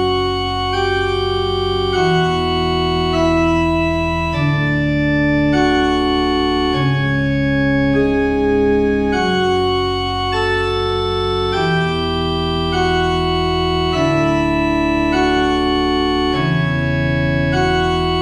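Organ music: sustained chords over a steady bass, changing about every second or so.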